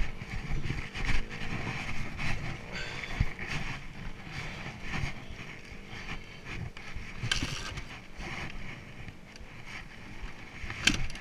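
Wind buffeting the helmet-camera microphone, with a few knocks and rattles as the fallen dirt bike is picked up and mounted; a sharper knock comes near the end.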